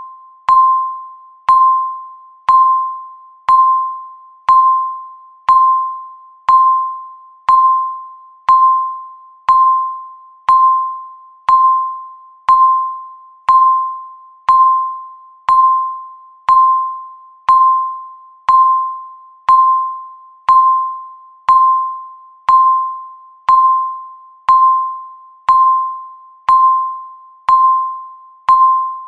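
Countdown timer ticking: a short electronic ding sounding exactly once a second, each a single mid-pitched tone that starts with a click and fades quickly.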